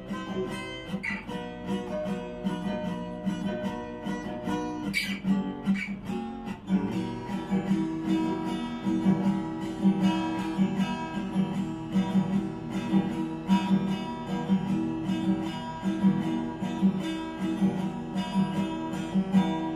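Acoustic guitar strummed in a steady rhythm, the chords broken by sharp muted percussive strokes: the 'stuk' (knock) strumming technique.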